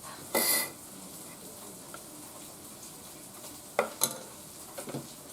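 Handling of a small Ninja chopper's plastic bowl of mashed beans: a short scrape about half a second in, then a couple of sharp plastic clicks near the end, over a steady faint hiss.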